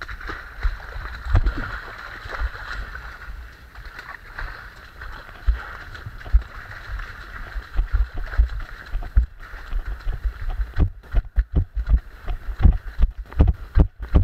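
Feet splashing and squelching through mud and puddles while running, heard from a body-worn camera. In the last few seconds the strides come through as quick, regular thuds.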